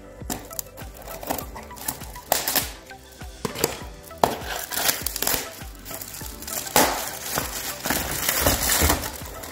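Plastic packaging being torn open and crinkled, then small cardboard boxes being handled, in several separate rustling bursts.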